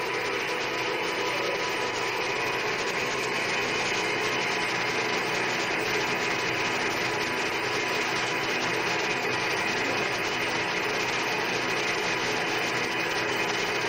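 Centre lathe running steadily, its chuck spinning a workpiece held on the tailstock centre while the tool is fed in by hand to turn a curved groove.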